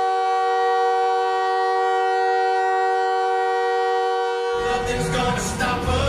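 Mississauga Steelheads' hockey goal horn blasting one steady, many-toned chord. About four and a half seconds in, the team's pop goal song cuts in over it and the horn dies away.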